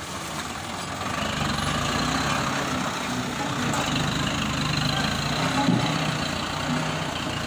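Loaded light truck's diesel engine running steadily, a little louder from about a second in.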